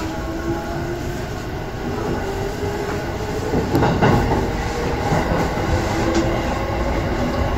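Electric commuter train running along the line, heard from just behind the driver's cab: a steady rumble of wheels on rail with a low motor hum, and a brief clatter over rail joints about four seconds in.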